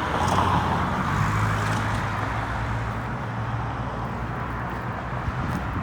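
A motor vehicle's low engine hum over a steady wash of road noise. The hum is strongest a second or two in and then slowly fades.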